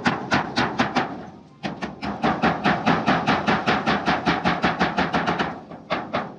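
Hammer driving nails into long span aluminium roofing sheets: quick, even blows about four a second, with a short pause about a second in and another near the end.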